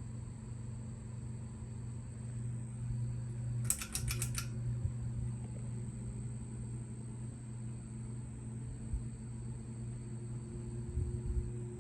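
Hugger ceiling fan running with a steady low motor hum and a faint high whine. About four seconds in there is a quick run of sharp clicks.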